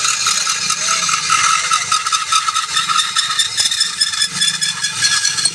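A workshop machine running with a steady high whine that rises slightly in pitch, mixed with rattling and scraping.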